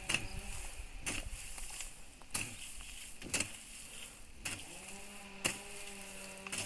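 A hoe chopping into soil, about one stroke a second, seven strokes in all. A buzzing hum comes and goes between the strokes, strongest near the end.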